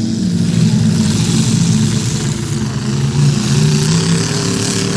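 Demolition derby cars' engines running and revving on the track, their pitch wavering up and down.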